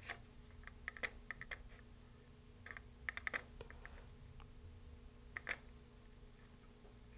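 Faint, scattered small clicks and taps in short clusters as fingers tie a slip knot in thread on a model rocket glider's wing slide box, with the strongest pair of clicks a little past five seconds in.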